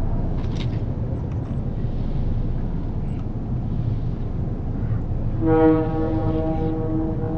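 A train horn sounds once, a single held note for about two seconds, starting about five and a half seconds in, over a steady low rumble.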